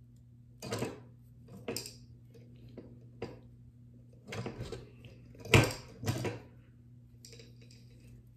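Hands tying a knot in fluorocarbon fishing line to a small torpedo snap swivel: a scattering of short rustles and ticks, the loudest a little past halfway, over a low steady hum.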